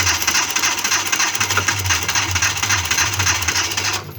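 Car engine being cranked on the starter motor without catching, a fast, even chugging that cuts off about four seconds in. A crank-only no-start after the engine overheated.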